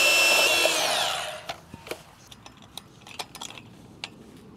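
DeWalt 20V MAX XR cordless band saw running through galvanized steel fence-rail pipe, then winding down with a falling pitch about a second in as the cut is finished. After that come scattered light metal clicks and knocks as the pipe and fence fittings are handled.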